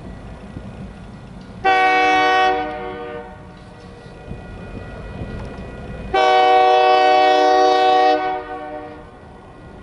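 Diesel locomotive air horn, CN 2284, sounding two blasts: a short one, then a longer one of about two seconds. A low train rumble runs underneath before the second blast.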